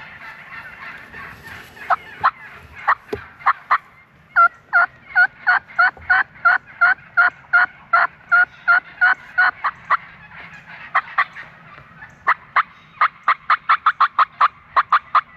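Turkey yelping: a few scattered yelps, then a long, even series of about three yelps a second. After a short pause comes a faster run of yelps near the end.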